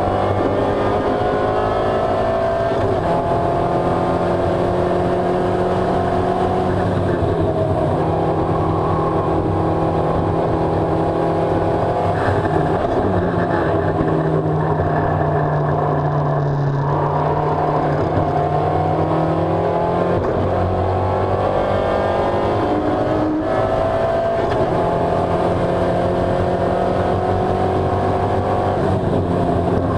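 Onboard sound of an SRF3 spec racer's four-cylinder engine under hard acceleration, its pitch climbing and dropping back at each upshift. About halfway through it comes off the throttle and holds a lower, steady note for several seconds through a corner, then climbs through the gears again.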